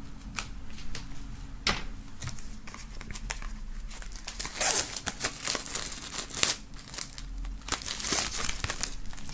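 Plastic shrink-wrap film being cut with a knife and pulled off a CD album, crinkling and tearing in irregular bursts, busiest in the middle.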